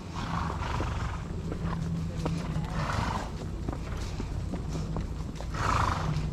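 Horses walking along a dirt trail, hooves clopping at an uneven pace. A horse makes three short breathy sounds, a couple of seconds apart.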